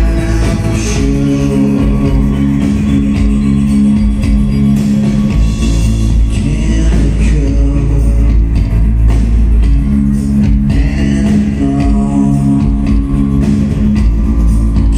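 Rock band playing live at loud volume: a singer's voice over electric guitars, bass guitar and drum kit, with sustained held chords and heavy bass throughout.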